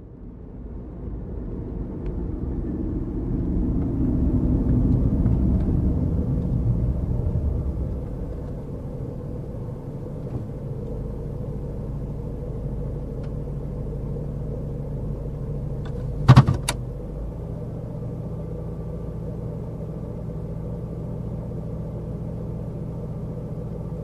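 A low rumbling drone that swells over the first several seconds, then holds steady with a few held tones. A single sharp hit comes about sixteen seconds in.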